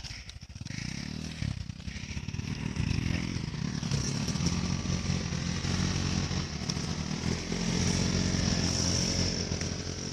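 Small motorcycle engine running, its pitch rising and falling with the throttle after a brief dip near the start, with a steady high-pitched hum above it.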